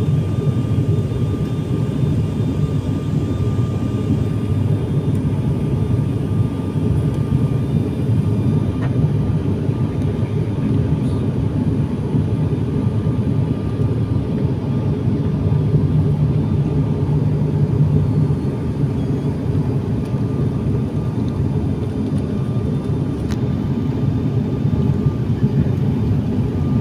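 Cabin noise of a high-wing turboprop airliner in flight: a steady, even drone of engines and airflow, with a faint steady whine above it.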